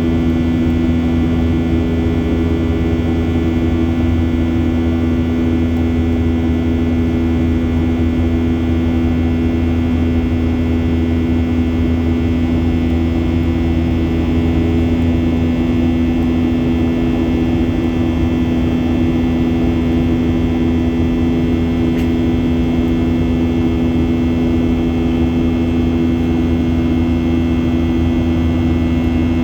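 Steady drone of a Boeing 737-800's CFM56 jet engines heard from inside the passenger cabin, a constant low hum with strong steady tones and no change in level.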